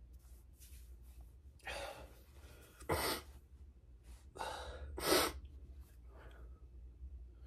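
A man breathing hard from exertion after leg training: two pairs of noisy breaths, each a breath in followed by a shorter, louder breath out, with fainter breaths around them over a low steady hum.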